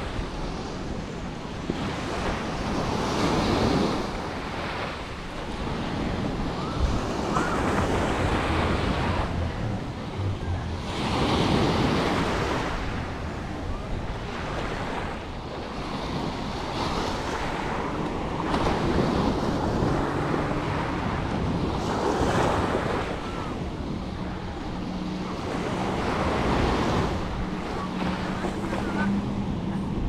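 Sea waves breaking and washing up the beach, surging every few seconds, with wind buffeting the microphone.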